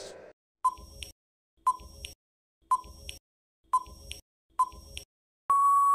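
Quiz countdown-timer sound effect: five short electronic beeps about a second apart, then one long steady beep near the end that signals time is up.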